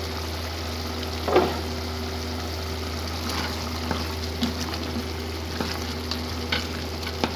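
Camel meat and chopped tomatoes sizzling in their own tomato juice in a pan, stirred with a wooden spoon, with scattered light scrapes and clicks and one louder knock about a second and a half in. A steady low hum runs underneath.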